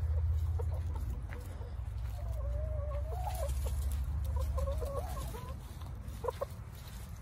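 Young laying hens calling softly: two low, wavering calls in the middle, then a few short clucks near the end, over a low rumble.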